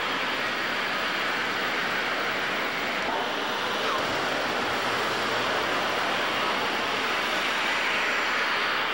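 Steady rushing noise of a 100 series Shinkansen train moving along a station platform.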